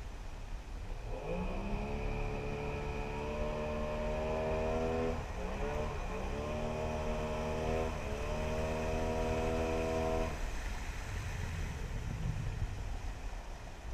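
Outboard motor of a motorized dugout river canoe running, its pitch rising about a second in, dipping briefly twice, then easing off near the end, over a steady low rumble of wind and water.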